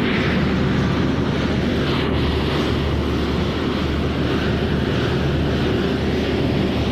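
Corn flakes production line machinery running: a steady, loud mechanical drone with a low hum and an even rushing noise over it, with no distinct knocks or changes.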